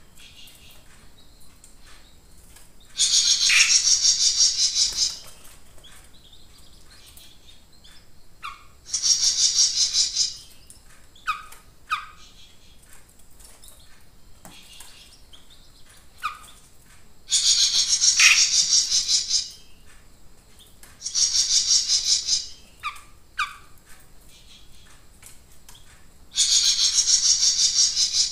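Caged 'jenggot mini' songbird singing vigorously: five bursts of fast, high, rattling trills about two seconds each, with short single chirps between them.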